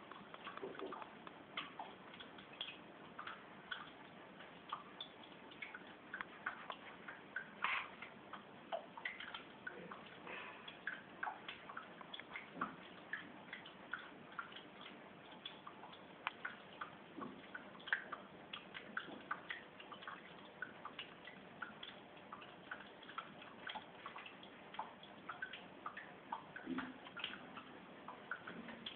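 Water dripping and trickling in a paludarium: a faint steady hiss broken by many small, irregularly spaced drips and plinks.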